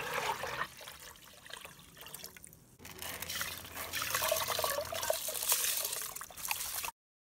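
Water pouring from a jug into a metal pot. About three seconds in it gives way to dry brown rice streaming into the water, a louder hiss and patter of grains, which cuts off suddenly near the end.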